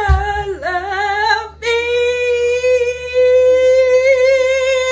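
A woman singing unaccompanied, holding long notes: a first note with a slight wobble, a brief break about a second and a half in, then a second note held steady for about three seconds that rises near the end.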